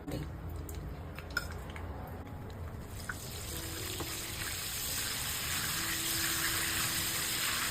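Tempering of curry leaves, cumin and mustard seeds sizzling in hot peanut oil, with a few scattered pops at first and a steady hiss that grows louder from about three seconds in.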